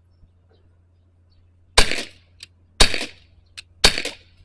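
Three shots from a CO2-powered Glock BB pistol, about a second apart, each a sharp crack with a short tail.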